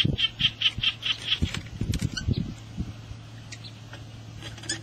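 Rustling and low thumps of dry grass and a woven bag as a caught swamp eel is handled, with a quick run of high chirps, about five a second, in the first second or so.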